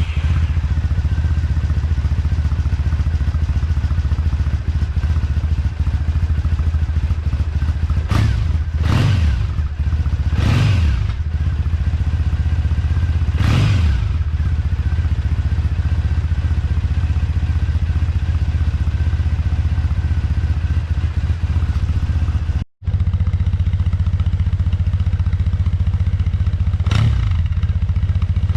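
Triumph Bonneville T100 parallel-twin engine idling through its exhaust, with several short throttle blips about a third of the way in and one more near the end. The sound drops out for an instant about two-thirds of the way through.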